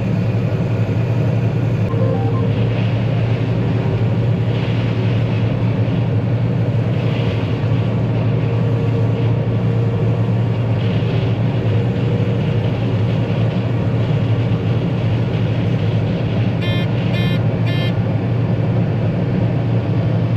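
Combine harvester running steadily while harvesting, a constant low drone. Near the end, three short beeps sound in quick succession.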